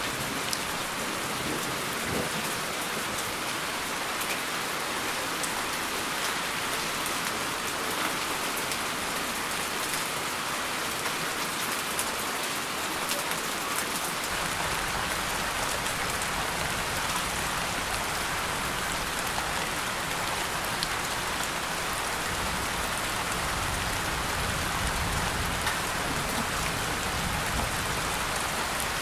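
Steady rain falling, an even hiss dotted with faint drips. A low rumble fills in underneath about halfway through.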